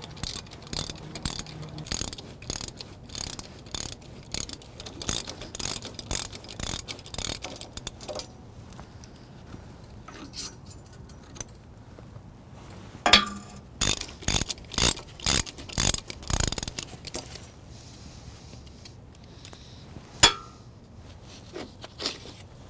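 Ratcheting wrench clicking rapidly in short runs as the bolts on the bandsaw mill's steel blade-guide mounts are worked loose. In the second half come a few separate metal clanks, some with a short ring, as the steel roller guide assemblies are handled and pulled off. One last sharp clank comes about twenty seconds in.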